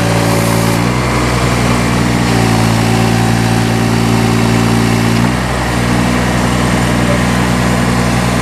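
Yanmar diesel engine of a Takeuchi TB016 mini excavator running while the hydraulics swing the articulated boom. Its note shifts pitch a few times, about a second in, again past two seconds and again past five seconds, as the load changes.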